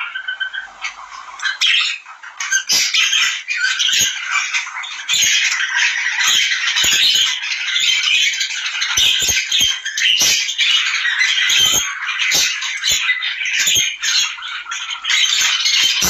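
A group of small birds chattering and squawking without pause, with many short sharp clicks and knocks among the calls.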